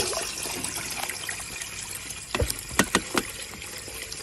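Running water trickling over cleaned squid in a plastic colander as they are rinsed, with a few sharp knocks of handling about two and a half to three seconds in.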